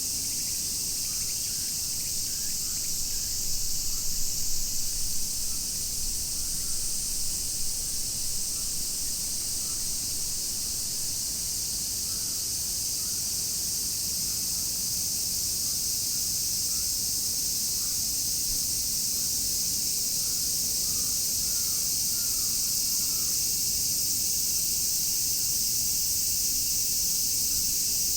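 Dense chorus of summer cicadas: a steady, unbroken high-pitched shrilling, with a few faint chirps around the middle.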